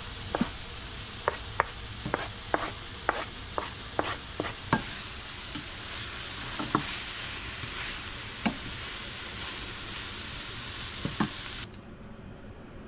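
Chopped tomatoes, onion and greens sizzling in a hot stainless steel pan as a wooden spoon stirs them, with a quick run of sharp knocks and clicks of the spoon against the pan in the first five seconds and only a few after. The sizzle cuts off suddenly near the end.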